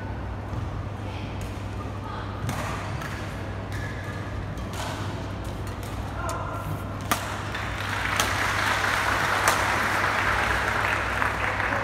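Badminton rackets striking the shuttlecock in a rally: sharp cracks spread a second or two apart, over a steady hum of the hall and some voices. For the last few seconds a broad rushing noise swells up and is louder than the strokes.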